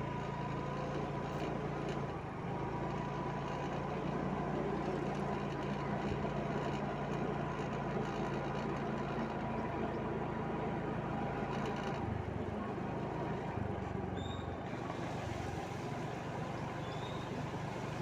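Motor scooter engine running steadily as it rides along, with road and wind noise; the engine note changes about twelve seconds in.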